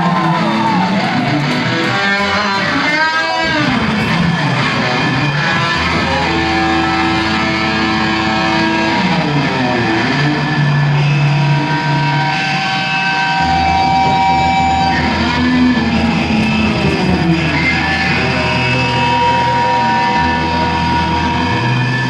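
Live punk band playing: electric guitar and bass holding long notes, with bending, wavering guitar notes a few seconds in.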